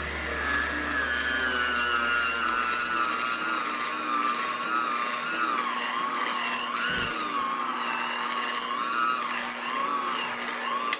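Electric hand mixer running with its beaters in a stiff cake dough, a motor whine whose pitch wavers up and down as the beaters labour through the dough while it comes together into a ball.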